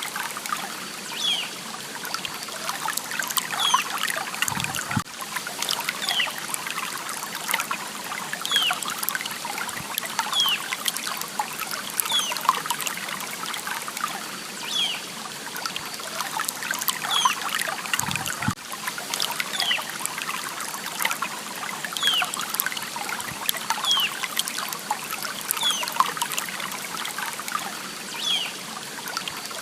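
Water trickling and splashing steadily in a stream. Short, high, falling chirps repeat every couple of seconds over it, and there are two brief low thuds, one about five seconds in and one at about eighteen seconds.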